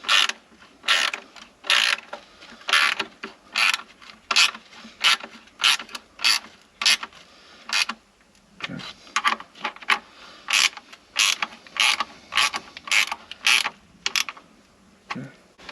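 Hand ratchet wrench clicking in short repeated strokes, about two a second with a brief pause midway, as the new intake manifold's fasteners are run down by hand.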